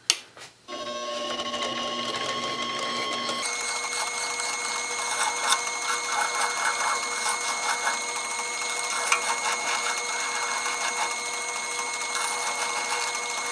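Central Machinery 7x10 mini lathe starting up under a second in and running with a steady motor whine, while a hand file is held against the spinning workpiece to take off burrs. About three seconds in, the sound runs at double speed: the whine jumps to about twice its pitch, with uneven file scraping over it.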